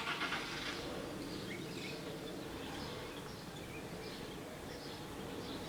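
Birds chirping now and then over a steady low background hum.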